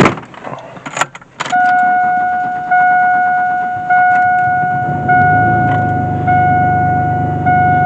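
Chevy Blazer ZR2's driver door slams shut, then the dashboard warning chime dings about every 1.2 seconds. From about halfway through, the starter cranks the 4.3-litre V6 under the chimes without it firing: slow to start after a fuel pump replacement.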